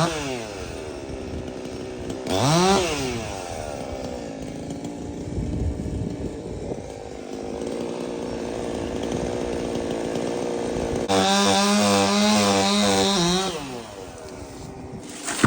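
Chainsaw revved up and down once, then held running under load as it cuts into a tree trunk for the felling notch. Late on it runs louder at a steady high rev for a couple of seconds, then drops back to idle.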